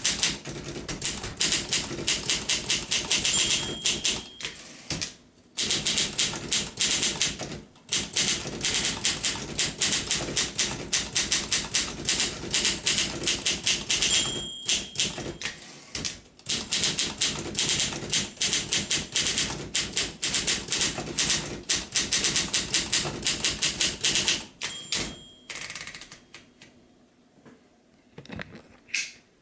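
1958 Olympia SM3 manual portable typewriter being typed on in fast runs of key strikes, with short pauses. A short ring, the margin bell near the end of a line, sounds three times. The typing stops near the end, leaving a few faint clicks.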